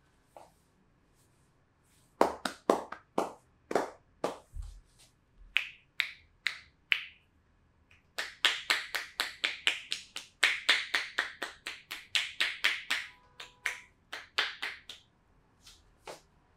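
Percussive back massage: the masseuse's hands slap and pop against the back. There is an irregular handful of strikes at first, then from about eight seconds in a fast even run of about five strikes a second that stops near the end.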